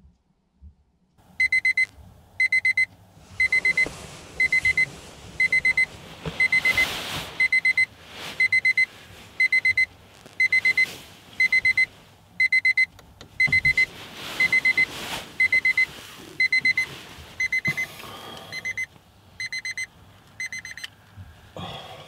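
Small alarm clock going off: short bursts of rapid, high-pitched beeps, about one burst a second, starting about a second in and stopping shortly before the end.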